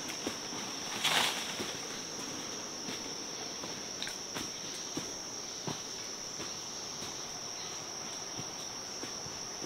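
Insects droning in one steady high-pitched tone, with scattered light clicks and rustles and a brief louder rustle about a second in.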